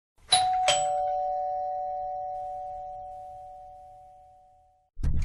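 Two-tone doorbell chime, "ding-dong": a higher note then a lower one, both ringing on and fading out over about four seconds. A thud comes near the end.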